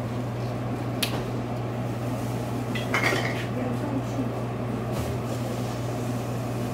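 Plastic clicks and a short clatter as a clear plastic cup is handled under a Bunn frozen-drink slush dispenser and its tap handle is worked to pour blue slush. There is a sharp click about a second in, a brief clatter around three seconds and another click near five seconds, over a steady low hum.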